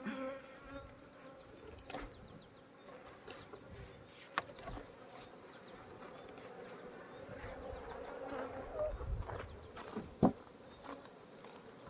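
Honeybees buzzing steadily around an opened hive, agitated and defensive at the disturbance. A few sharp clicks or knocks break in, the loudest about ten seconds in.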